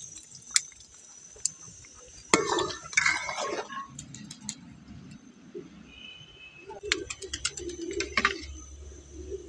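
Metal utensils clicking and clattering, with one sharp clink a couple of seconds in, while a pigeon coos in low repeated notes through the second half.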